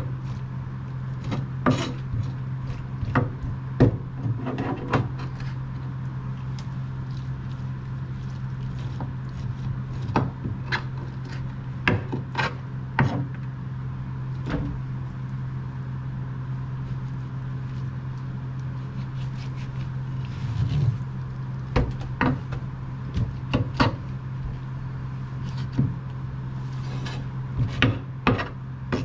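Kitchen knife knocking and scraping on a wooden cutting board as a rockfish is cleaned: irregular sharp taps and scrapes, with a steady low hum underneath.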